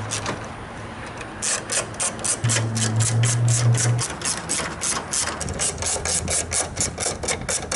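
Hand ratchet with a 10 mm socket clicking rapidly as it backs out the grille bolts, several clicks a second, starting about a second and a half in.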